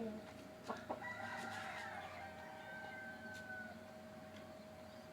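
A rooster crowing once, one long call lasting nearly three seconds that falls slightly at the end, with a couple of short clicks just before it.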